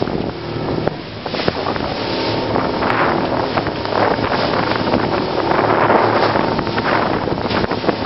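Boat running fast into choppy sea: a steady engine hum under surges of spray and waves splashing against the metal hull, with heavy wind buffeting the microphone.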